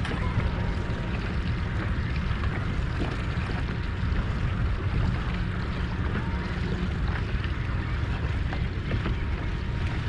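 Steady low rumble of a fishing boat under way, its Suzuki outboard running, mixed with wind on the microphone.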